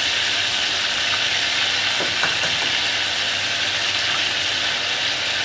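An egg frying in a pan of foaming butter: a steady, even sizzle, with a faint tick or two about two seconds in.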